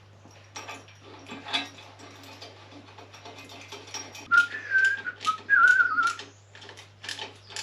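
A person whistling a short, wavering tune for about two seconds in the middle, over scattered light clicks and rattles of small metal parts being handled. A faint steady low hum runs underneath.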